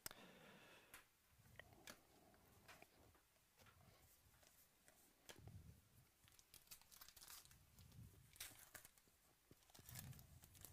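Faint tearing and crinkling of a trading-card pack wrapper as it is torn open, with the rustle of cards being handled.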